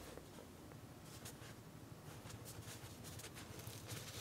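Soft crackling of a bread bun's baked crust under the fingers as hands grip and squeeze a shio anpan (salty red bean bun) to pull it apart: a sharp click at the start, then scattered faint crackles that grow denser and louder near the end as the bun starts to tear.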